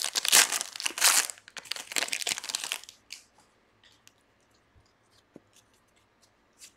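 Foil wrapper of a trading-card pack being torn open and crinkled for about three seconds, then faint clicks as the stack of cards is handled.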